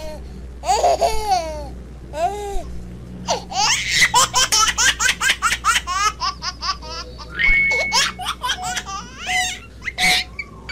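A kids' math quiz game playing through a tablet's speaker: high, childlike laughter and giggles, with a long run of quick laughs in the middle and a few short beeping tones in the second half.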